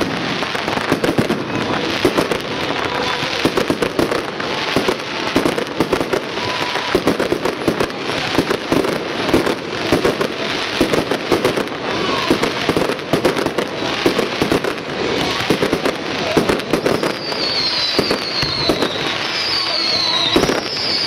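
Fireworks display: a dense, continuous run of bangs and crackles from aerial shells bursting. Near the end, a series of short high whistles joins in, each falling slightly in pitch.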